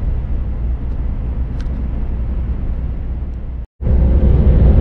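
Steady low drone of a Scania S500 truck driving, engine and road noise heard inside the cab. Near the end it cuts out for an instant and returns louder, with a faint steady hum over it.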